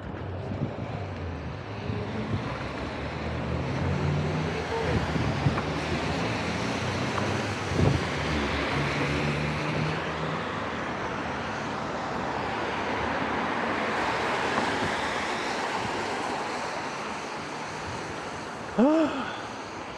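Wind buffeting the microphone of a moving electric scooter, over traffic and tyre hiss on a wet road. There is a short knock about eight seconds in and a brief pitched squeak about a second before the end.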